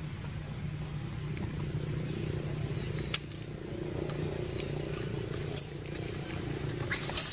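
Shrill screams from a macaque near the end, rising and falling in pitch, during a chase between two macaques, over a steady low hum; a couple of sharp clicks earlier.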